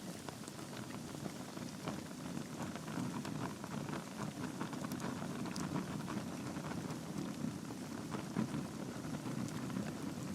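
Log fire burning in a fireplace: a steady low rush of flame with a dense scatter of small crackles and sharp pops.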